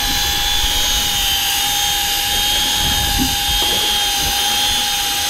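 A steady mechanical whine holding one pitch, with several tones stacked above it, over a low rumble.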